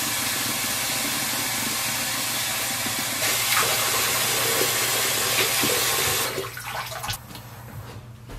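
Water running from a bathroom sink tap, growing louder about three seconds in and shut off a little after six seconds. A few light knocks follow.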